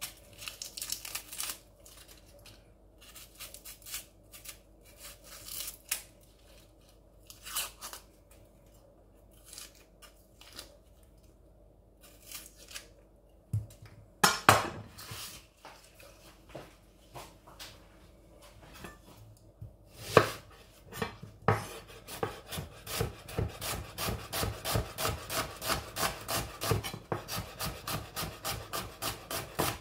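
A red onion being peeled with a kitchen knife, the papery skin scratching and crackling, with an occasional knock on the wooden cutting board. Over the last several seconds the onion is sliced on the board: a steady run of knife strokes, about three a second.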